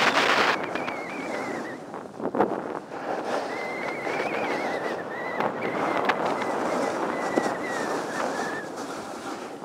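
Wind rushing over the microphone while sliding down a groomed ski run, with the steady hiss and scrape of edges on packed snow and a few sharp knocks from bumps.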